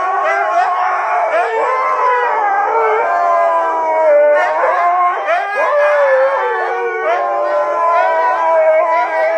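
A pack of huskies howling together in chorus: several overlapping howls that slide up and down in pitch without a break.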